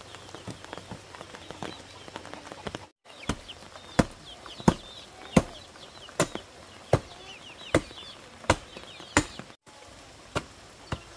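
A steady series of sharp blows of a hand tool on wood, about one every 0.7 seconds, as a coop is being built.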